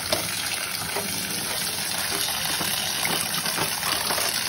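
Cold tap water pouring in a steady stream onto freshly boiled noodles in a stainless steel mesh strainer over a steel sink, rinsing the hot noodles.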